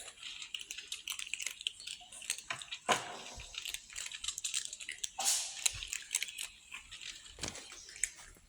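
Young kittens chewing and crunching, with many quick irregular clicks and a few louder rustles.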